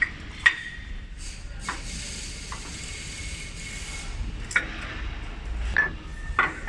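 Sharp knocks and clinks of parts and tools being handled on a four-sided moulding machine while its saw-spindle table is changed, a few of the clinks ringing briefly. The machine is not running; a steady low background hum lies underneath.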